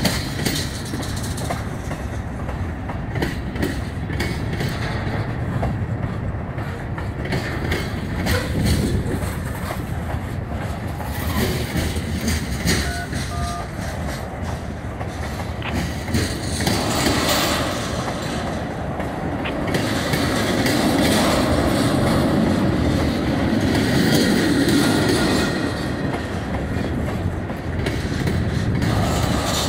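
Norfolk Southern freight train rolling past, its wheels clicking over the rail joints over a steady rumble that swells louder past the middle.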